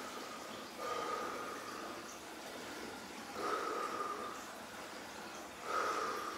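A man breathing deeply and forcefully while sitting in an ice bath, three long breaths about two and a half seconds apart: heavy breathing against the cold of the water.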